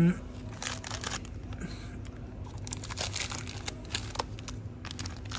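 Plastic crinkling and rustling: a run of irregular sharp crackles like food packaging being handled, over a steady low hum.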